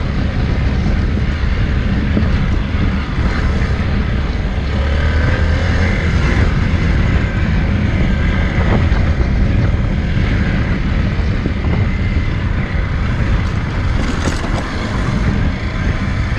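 Motorcycle engine running steadily while riding off-road on a dirt enduro track, with wind rushing over the microphone.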